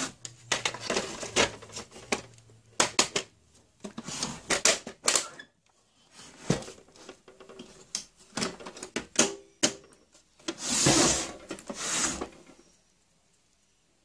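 Plastic clicks, snaps and knocks of an HP LaserJet P1102 printer's casing being handled as its front cover is fitted back on. Near the end come a couple of longer scraping rushes as the printer is shifted round on the bench.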